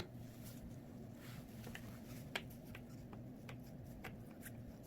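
Faint handling sounds of small craft items on a work surface: light clicks, taps and rustles, the sharpest about two and a half seconds in, over a steady low hum.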